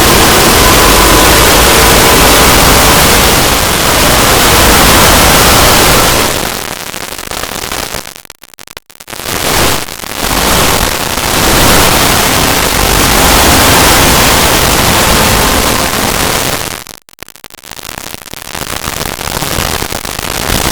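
Very loud, harsh static-like noise filling every pitch at once. It cuts out sharply for a moment about eight and a half seconds in and again about seventeen seconds in, then comes back.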